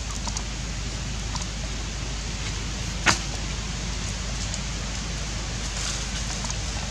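Steady hiss of outdoor background noise, with one sharp click about three seconds in.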